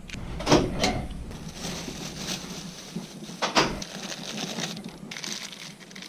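Handling noise: objects clicking and clattering in a cluttered desk drawer, then rustling of a plastic bag being pushed into a metal locker. A few sharp knocks stand out, the loudest about three and a half seconds in.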